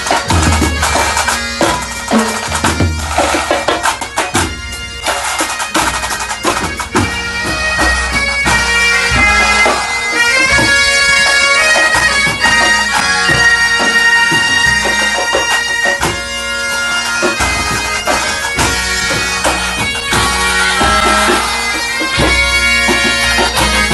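Breton pipe band (bagad) playing: bagpipes over a steady drone, with drums beating, busiest in the first few seconds.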